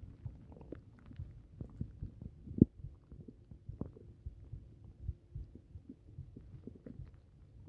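Upset stomach rumbling close up: irregular low gurgles and pops, with one sharp, loud pop about two and a half seconds in.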